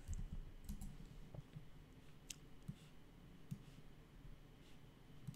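A few faint, scattered clicks from a computer keyboard and mouse, spaced irregularly.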